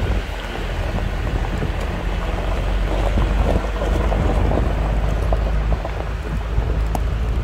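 Wind buffeting the microphone: a loud, steady, low rumble with gusty noise over it.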